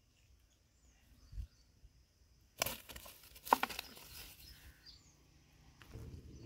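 Handling noise as a freshly caught fish is dealt with on grass: rustling with a few sharp clicks and knocks, the loudest about two and a half and three and a half seconds in, and low rubbing sounds near the end. Faint bird chirps and a steady high drone sit underneath.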